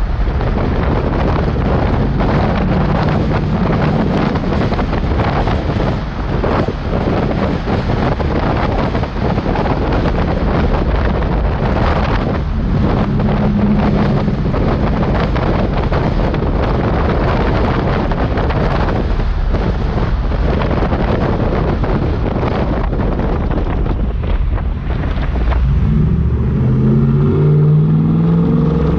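Heavy wind buffeting on a GoPro's microphone, a loud, rough rush that masks nearly everything. Under it a vehicle engine runs, its note coming through more clearly and changing pitch in the last few seconds.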